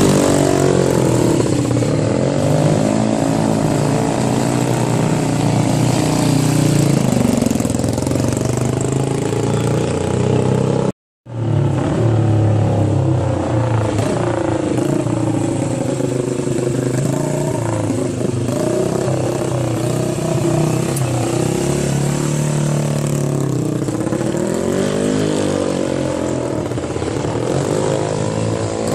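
Historic racing motorcycle engines revving as the bikes ride off and pass by, their pitch rising and falling with each blip of the throttle. The sound cuts out briefly about eleven seconds in.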